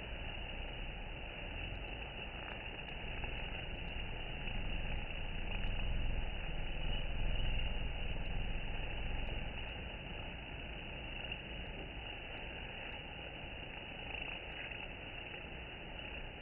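Many honeybees buzzing at a wooden hive entrance during robbing, heard as a steady, low, noisy drone with no clear pitch.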